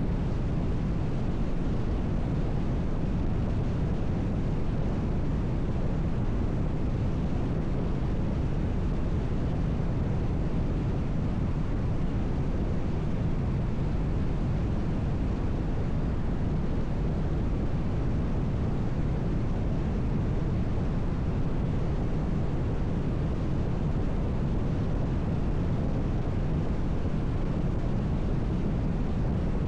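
A car driving steadily: a constant low rumble of tyre and road noise with some wind.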